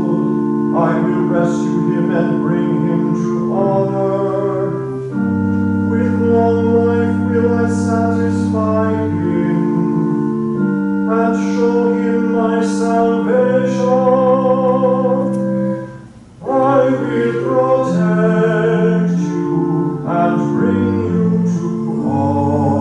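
Church organ holding sustained chords under a sung melody line, a psalm being sung to organ accompaniment. There is a brief break between phrases a little past the middle.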